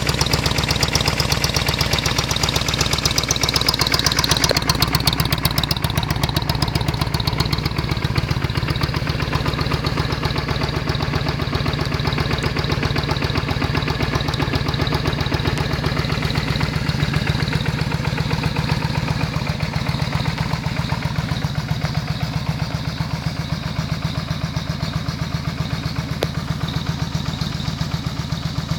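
Yamaha Virago 535's air-cooled V-twin idling steadily with a deep, loud rumble of exhaust pulses.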